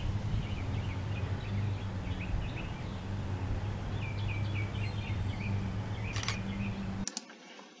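Backyard ambience: birds chirping in short runs over a steady low hum, with a single sharp click of a DSLR camera shutter about six seconds in. Near the end the sound drops abruptly to faint room tone.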